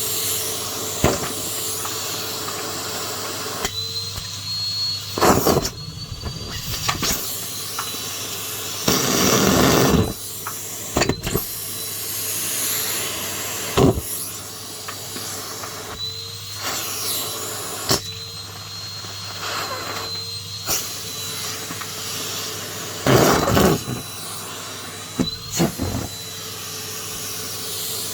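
Numatic James cylinder vacuum cleaner running steadily with a high whine, the whine rising slightly now and then, and brief loud rattles and knocks as it vacuums up debris.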